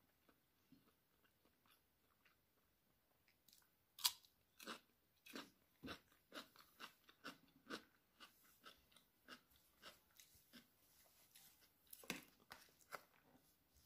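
A crisp bite into a raw cucumber about four seconds in, then crunchy chewing at about two crunches a second, with another sharp crunch near the end.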